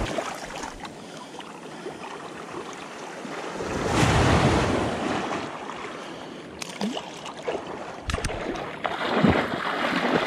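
Small surf waves washing over wet sand in the shallows, with wind on the microphone. A wave swells up about four seconds in, and water splashes near the end.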